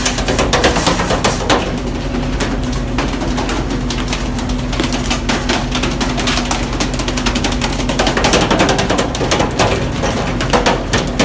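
A fishing boat's engine drones steadily under a rapid, irregular clatter of sharp knocks and clicks.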